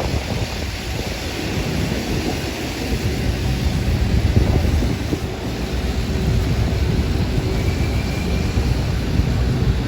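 City street ambience: a steady rumble of traffic.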